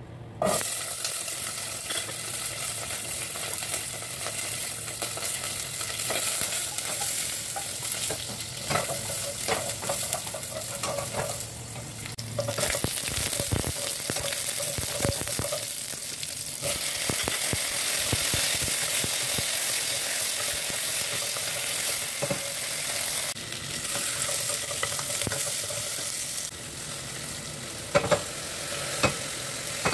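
Sliced onion and garlic cloves frying in hot oil in a stainless steel pot. The sizzle starts suddenly about half a second in and stays steady. A wooden spoon stirs and scrapes against the pot, and a couple of sharp knocks come near the end.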